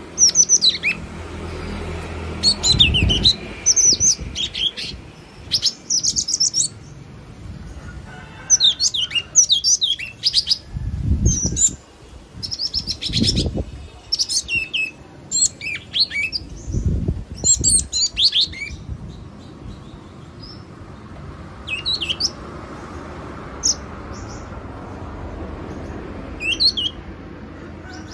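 Yellow-cheeked tit calling: short bursts of high, quick chirping notes in groups every second or two, sparser after about twenty seconds in. A few brief low rumbles come under the calls.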